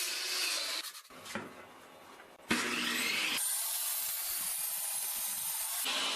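Electric cut-off saw cutting plywood to length. The noise falls away about a second in, then the saw starts again sharply about two and a half seconds in and cuts through, with a louder hiss for a few seconds.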